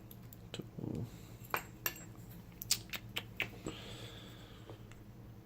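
Sharp metallic clicks and clinks of a hardened-steel round-body padlock being handled and locked back up, with a short low thump about a second in and a brief squeak about four seconds in.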